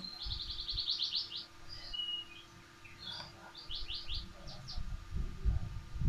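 A small songbird singing: two fast, high trills of repeated chirps, one early and one about four seconds in, with a short whistled note between them. Soft low knocks from the noodle box being handled come near the end.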